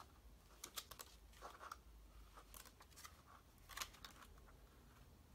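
Faint rustles and soft clicks of paper as the pages of a small paperback field guide are turned by hand.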